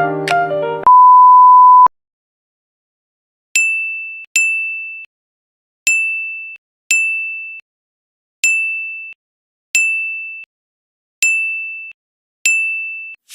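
A few notes of music end, then a loud steady electronic beep holds one pitch for about a second. After a short silence come eight identical high electronic dings, each fading out quickly and spaced a second or so apart.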